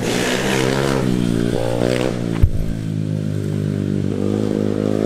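Mini bike engine running steadily, its pitch rising briefly about two seconds in, with one sharp knock just after.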